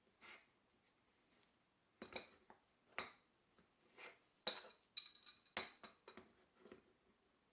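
Scattered sharp clicks and clinks of small hard parts and tools being handled, a few of them ringing briefly like metal.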